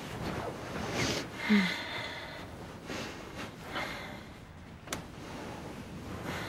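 Bedclothes rustling as a man shifts and turns over in bed, with his breathing and a short low grunt about one and a half seconds in. A small sharp click comes about five seconds in.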